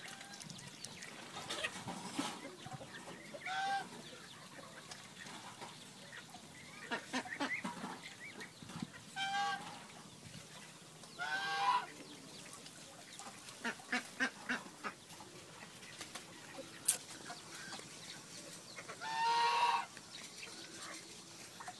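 A mixed flock of farmyard ducks, chickens and geese calling on and off. The calls come singly and in short runs, with a quick string of short calls a little past the middle and the loudest call, about a second long, near the end.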